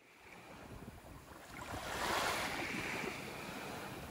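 Small waves washing up on a sandy beach, fading in from silence and swelling into a louder wash about two seconds in.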